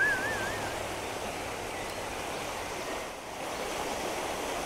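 Steady rushing of water over a shallow stream riffle, with a brief wavering whistle in the first second.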